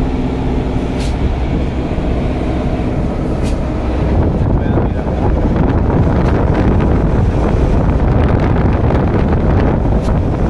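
Road and engine noise inside a moving vehicle's cab: a steady low rumble, with a louder wind and road rush from about four seconds in.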